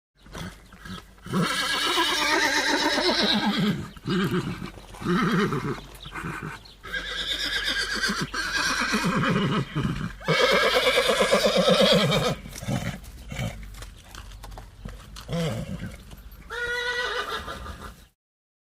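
Horse whinnying: a series of long, quavering neighs, one after another, cutting off abruptly near the end.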